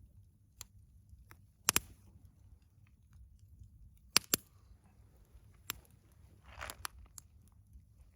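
Wood campfire crackling: scattered sharp pops and snaps at irregular intervals, two louder snaps about a second and a half in and again about four seconds in.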